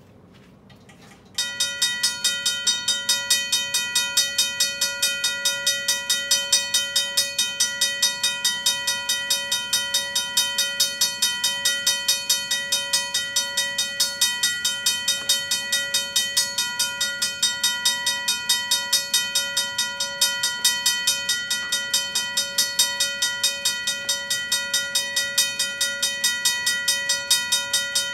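RACO mechanical railroad crossing bell switched on about a second in, its clapper hammering the gong in a fast, even ring of several strikes a second. This is the crossing signal being tested and working.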